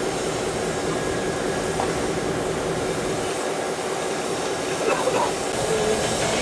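Standing steam locomotive giving off a steady hiss of steam, with a steady hum underneath.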